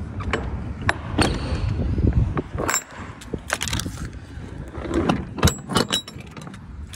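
Metal clanks, knocks and rattles of a truck's perforated galvanized steel loading ramp being lifted and slid into its stowage slot under the truck bed until it locks in. A dozen or so sharp knocks, some ringing briefly, with the loudest bunched around the middle and a second and a half from the end.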